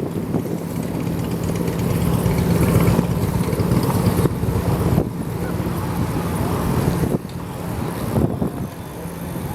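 A motor vehicle's engine humming steadily, with street noise, until it cuts off abruptly about seven seconds in.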